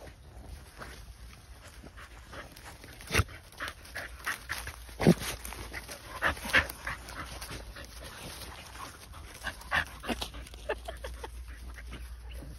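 Two Staffordshire bull terriers nosing and digging in dry leaf litter: rustling and scrabbling of paws and snouts in the leaves, with scattered short sharp sniffs and snaps, the loudest about three and five seconds in.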